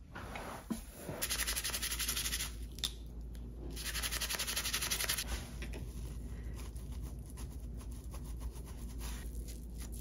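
Small Swiss Army knife being scrubbed with a scouring sponge: two bursts of rapid rasping strokes, each about a second and a half long, then lighter, irregular scratching and small ticks.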